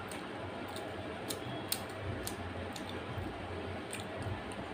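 Chewing sounds from a mouthful of fatty mutton curry and rice: scattered wet mouth clicks and smacks, about two or three a second, over a steady low hum.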